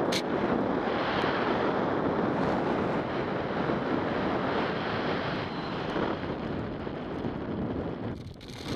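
Wind rushing over the camera microphone during a parachute descent under an open canopy, a steady buffeting noise that eases for a moment near the end.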